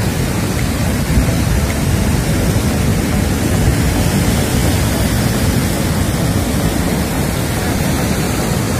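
Steady noise of heavy surf breaking on the shore, mixed with wind rumbling on the microphone.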